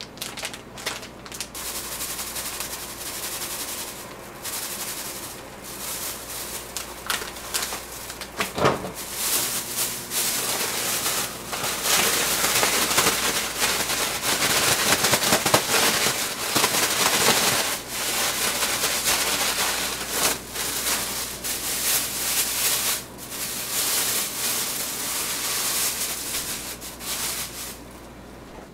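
Plastic bags crinkling and rustling: chicken tenders shaken in a thin plastic bag to coat them in potato starch, with many sharp crackles, loudest around the middle.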